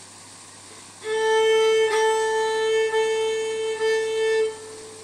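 Fiddle bowing one long held note that starts about a second in and lasts about three and a half seconds, with a few brief dips in loudness, over a steady background hiss.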